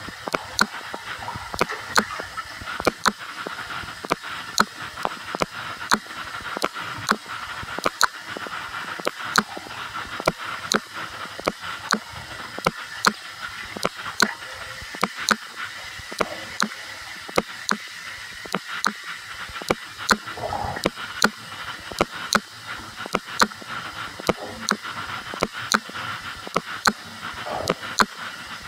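Bath tap running into a filling bathtub, a steady rush of water, with sharp regular clicks about two or three times a second.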